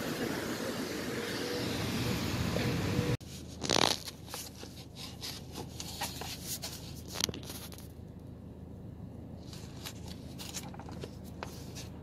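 Steady road and traffic noise that cuts off abruptly about three seconds in. After the cut come quieter scattered clicks and rustling of small objects and packaging being handled in a small room.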